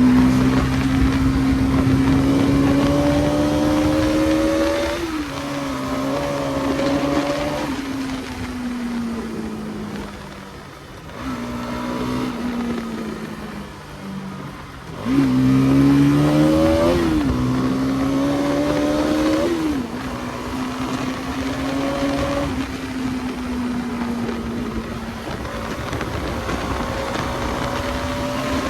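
Bajaj Pulsar NS200's single-cylinder engine under way, its pitch climbing under acceleration and dropping at each gear change. It eases off twice in the middle, revs up sharply about halfway through, then settles into a steady cruise, over constant wind and road noise.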